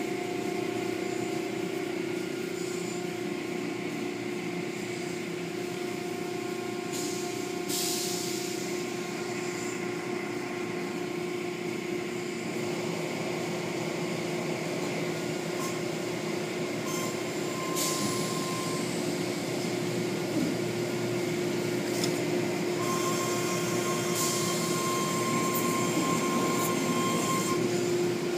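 Automatic tunnel car wash running, heard from inside a car: a steady machinery hum with a constant low tone under spinning cloth brushes and water spray. A higher whine joins twice in the second half, and short hissing gushes come now and then.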